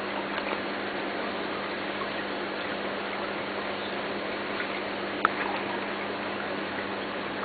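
Steady aquarium water and air-bubble noise with a constant low hum, a few faint ticks, and one sharp click about five seconds in.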